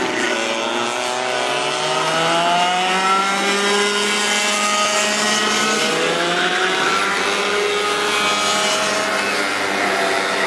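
Go-kart engines running on the circuit, several engine notes overlapping, their pitch rising and falling as the karts accelerate and slow.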